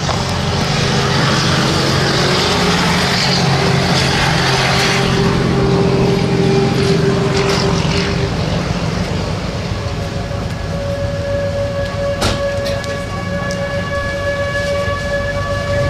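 Strong wind rushing and buffeting over the microphone, with steady low droning tones underneath. About ten and a half seconds in, a higher steady tone with overtones comes in and holds.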